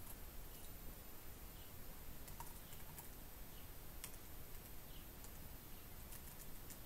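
Faint, irregular computer keyboard typing and clicks.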